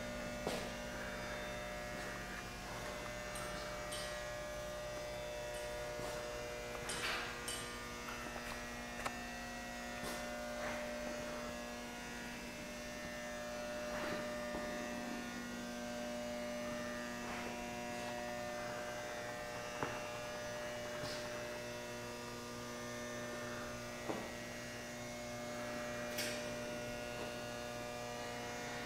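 Steady electrical mains hum, one unchanging multi-toned drone, with a few scattered light clicks and knocks.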